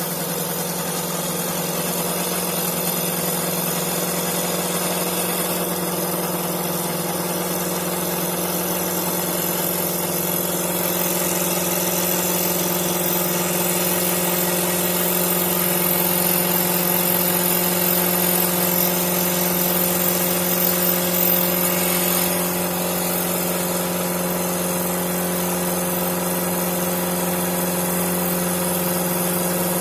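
STL1530 CNC wood lathe running while turning a wooden bowling pin: a constant motor hum with a high hiss over it. It swells a little and then eases off about two-thirds of the way through.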